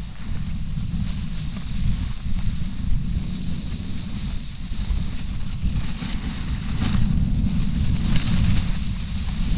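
Wind buffeting the microphone of an action camera during a snowboard run, a constant low rumble over the hiss of the board sliding and scraping on packed snow.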